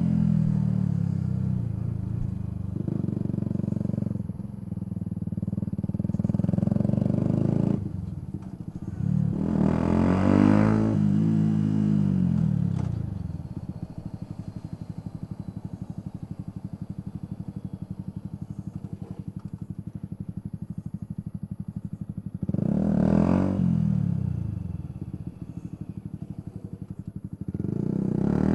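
Yamaha YZF-R125's single-cylinder four-stroke engine, its revs climbing and falling several times as the motorcycle pulls away and changes gear. For several seconds in the middle it drops to a steady, quieter idle.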